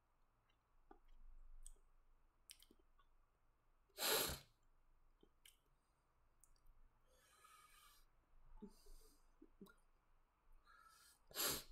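Quiet room with a man breathing out close to the microphone, once about four seconds in and again near the end, plus a few faint clicks from a computer mouse.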